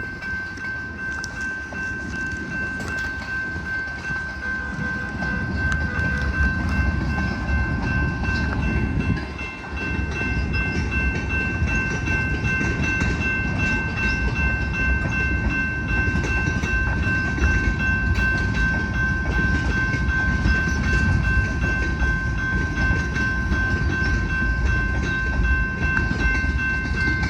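Freight train with EMD SD70MAC diesel locomotives running, a low rumble under a steady high-pitched whine. The rumble grows louder about five seconds in and drops briefly near ten seconds.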